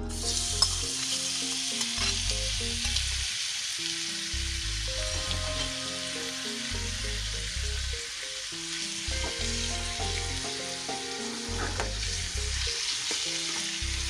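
Marinated chicken breast strips sizzling in hot oil in a frying pan, the sizzle starting suddenly as the meat goes in and continuing steadily.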